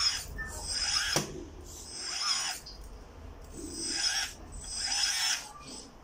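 Hydraulic pump and valves of a 1/14 scale RC skid steer loader whining in repeated rising surges, several times, as the hydraulic cylinders work the loader bucket.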